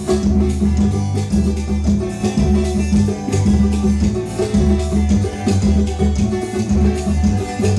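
Instrumental music: a plucked viola caipira with bass and percussion keeping a steady beat.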